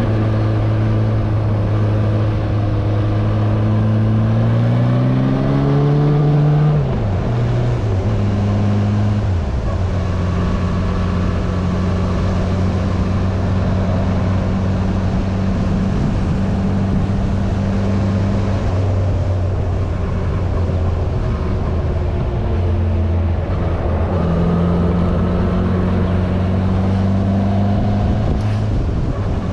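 Yamaha inline-four motorcycle engine under way. Its note climbs for a few seconds as it accelerates, drops sharply about seven seconds in at a shift or throttle-off, then holds steady at cruise, with another shift a few seconds before the end. A steady rush of noise runs underneath.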